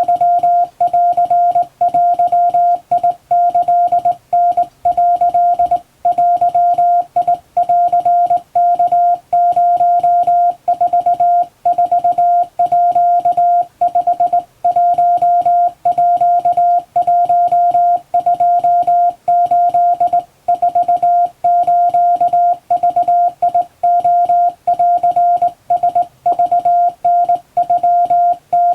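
Japanese wabun Morse code sent by hand on a straight key: a steady sidetone of about 700 Hz keyed on and off in quick short and long elements, with brief gaps between characters.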